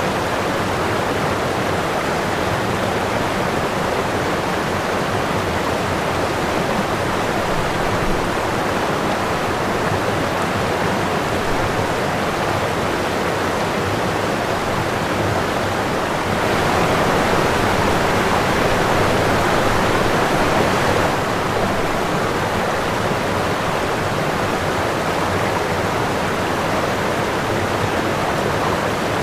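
Running water rushing steadily, swelling a little louder for a few seconds past the middle.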